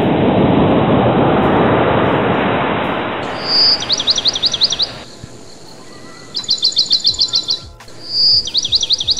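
A loud steady rushing noise fades away over the first few seconds. Then a bird sings the same phrase three times: a clear high whistle followed by a quick run of falling notes.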